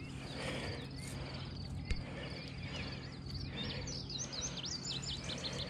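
Birds singing over a steady low hum: a high trill of repeated notes runs throughout, and a quick run of rising and falling whistled notes comes about four seconds in.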